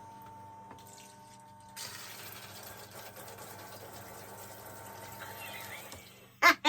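A portable outdoor shower is switched on: its small pump whines with a steady tone. About two seconds in, water starts spraying from the head with a steady hiss, and it fades near the end.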